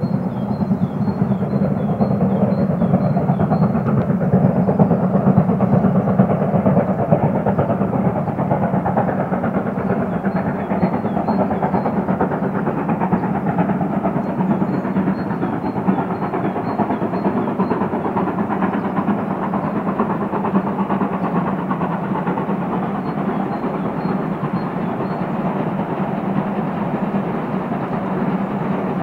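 Steam locomotive working under steam, its exhaust chuffing in a fast, steady, even beat.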